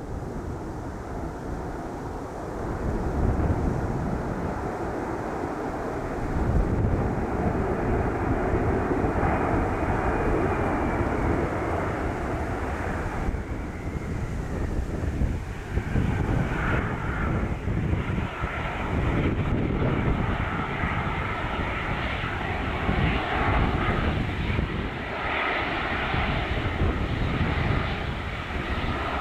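Fixed-wing airplane's engines running loud and steady as the plane passes, swelling a few seconds in, with a faint whine that slides down in pitch about a third of the way through. Gusty wind rumbles on the microphone underneath.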